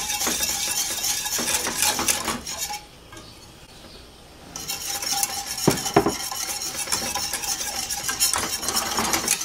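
Wire whisk beating hot milk in a stainless steel saucepan, its wires rapidly scraping and clicking against the pot as flour and sugar are dissolved into the milk for a roux. The whisking stops for about two seconds near the middle while more of the dry mix is poured in, then resumes with a couple of sharp knocks.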